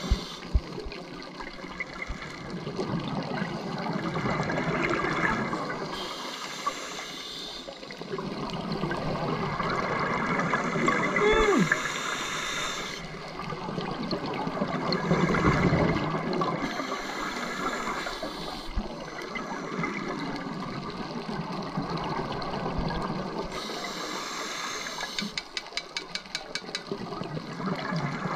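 Scuba breathing underwater: a regulator hisses on each breath about every five or six seconds, with bubbling rushes of exhaled air in between. A short falling tone sounds about a third of the way in, and a quick run of clicks comes near the end.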